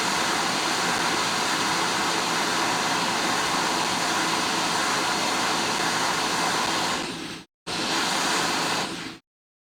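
Hot air rework station blowing a steady hiss of hot air, heating the phone's logic board. The sound cuts out abruptly for a moment about seven and a half seconds in, comes back, then cuts out again near the end.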